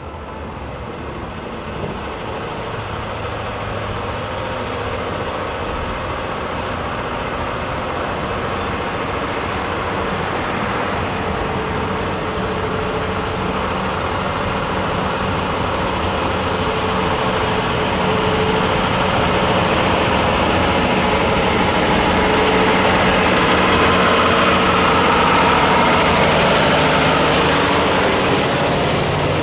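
Union Pacific tie train approaching and rolling slowly past: a steady engine drone with rail and wheel noise, growing gradually louder as the train nears and peaking a few seconds before the end as the cars go by.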